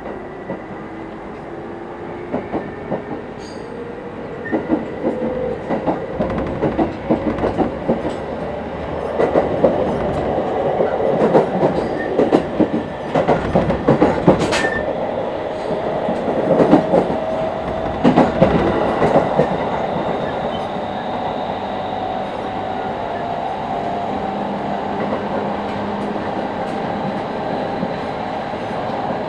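Cab-interior running sound of a Series 701 electric train. The GTO-thyristor inverter and traction-motor whine climbs slowly in pitch as the train gathers speed and levels off in the last third. Through the middle stretch the wheels clack over rail joints.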